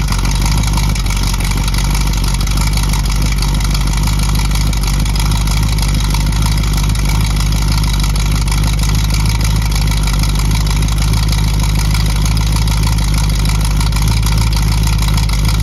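1965 Ford Mustang's 289 V8 idling steadily through its new dual exhaust.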